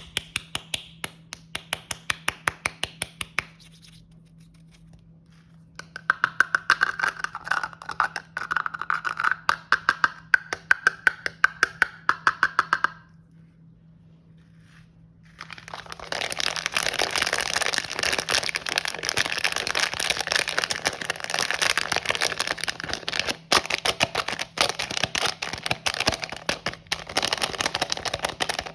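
Close-miked ASMR handling of packaged snacks: trains of rapid sharp crackles, two short pauses, then about 13 seconds of dense, continuous crinkling and crackling.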